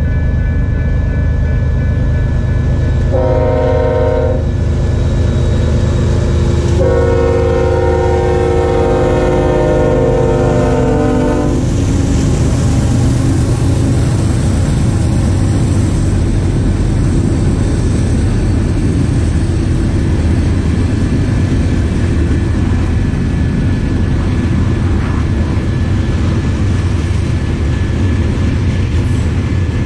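Union Pacific SD40N diesel freight locomotives approach and pass. Their air horn sounds a short blast about three seconds in and a longer one from about seven to eleven and a half seconds. After that the engines rumble past and the freight cars roll by on the rails.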